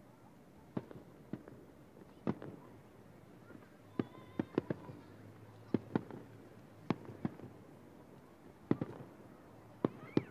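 Aerial fireworks shells bursting about a kilometre away: a string of sharp, distant bangs at irregular intervals, with a quick cluster of four about four seconds in.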